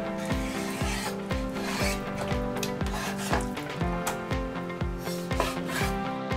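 A kitchen knife slicing through raw chicken thigh on a wooden cutting board, the blade rasping through skin and knocking against the board several times. Background music with a steady beat plays underneath.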